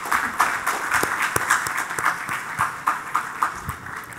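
Audience applauding, many hands clapping at once, fading toward the end.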